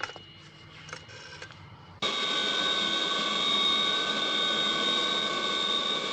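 Jet airliner's engines whining steadily as it taxis: several high, steady tones over a rushing noise. It cuts in suddenly about two seconds in, after a quiet stretch with a few faint clicks.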